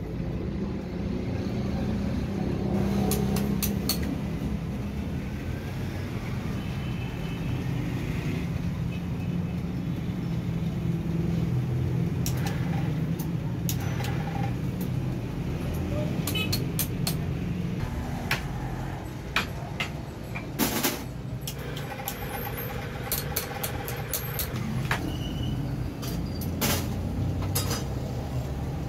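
A steady low rumble runs throughout, with scattered sharp clicks and taps from pliers and hand tools working stiff wire leads. The loudest are a few sharp clicks about two-thirds of the way in.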